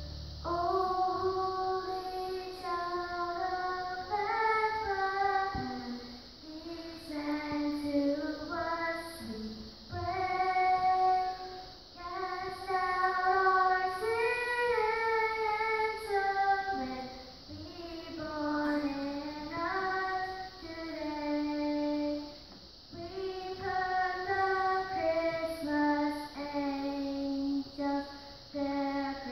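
A young girl singing a solo melody into a handheld microphone, holding long notes in phrases of a few seconds with short breaks between them.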